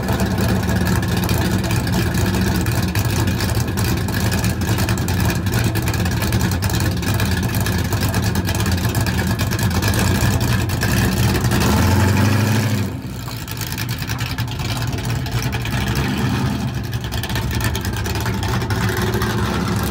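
1968 Dodge Dart's small-block Mopar V8 running loudly at idle, revved briefly about twelve seconds in, then quieter as the car drives away.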